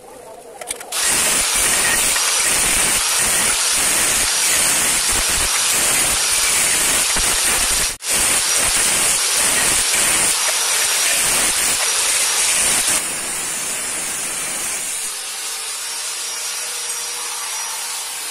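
Angle grinder with a cutting disc slicing through light-gauge steel channel, a loud steady hissing screech that starts about a second in. It breaks off for an instant about eight seconds in and drops to a lower level from about thirteen seconds on.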